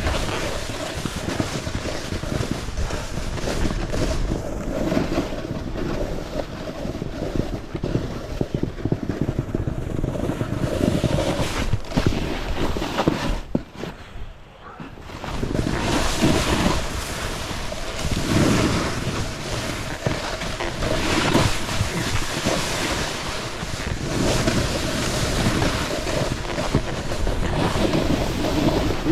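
Wind rushing over the microphone and a snowboard sliding and carving through soft powder snow, a continuous, uneven rush that swells and fades and briefly drops away about halfway through.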